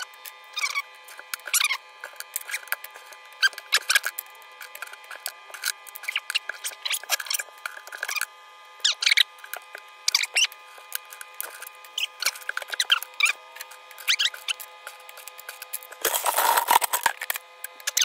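Rusty scrap-metal magnet-fishing finds clinking, clanking and scraping against each other and the plastic bucket as they are handled, in irregular sharp knocks. Near the end there is a louder stretch of dense rattling, about a second long, as the pile is rummaged.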